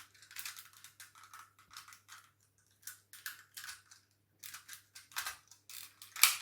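Hard plastic toy joints clicking and scraping as the antelope legs of a GekiFire (Jungle Master Megazord) toy are folded in: a run of short, irregular clicks, the loudest near the end.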